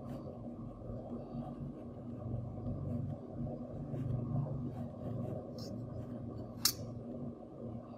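Low steady hum with scattered faint clicks and one sharp click about two-thirds of the way through.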